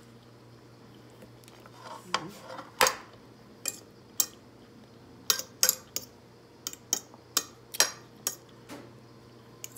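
A fork clinking and scraping against a plate while someone eats, in sharp, irregular clicks that begin about two seconds in, some of them in quick pairs.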